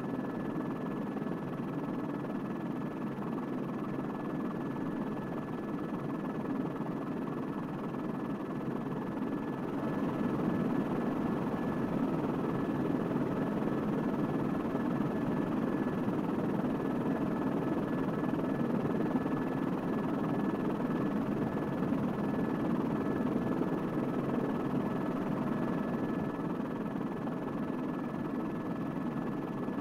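Small multirotor drone's propellers giving a steady whirring hum with a thin high whine over it, a little louder from about ten seconds in.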